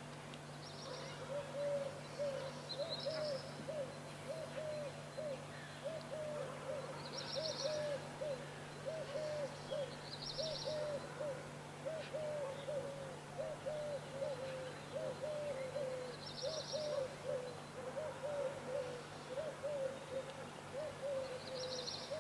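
Birds calling at dawn: a low cooing call repeated without a break, about one and a half notes a second, with a short high twittering phrase from another bird every few seconds. A steady low hum runs underneath.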